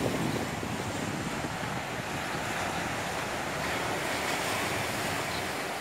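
Small ocean waves breaking and washing over lava rocks at the shoreline, a steady surf wash. Wind rumbles on the microphone at the start.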